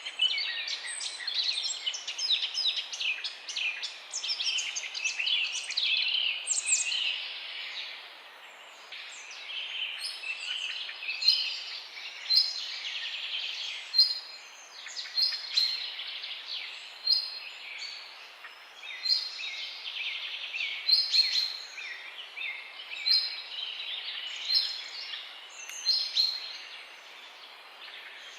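Several songbirds chirping and singing together. The song is dense and overlapping for the first several seconds, then thins out, with loud short notes ringing out every second or two over softer twittering.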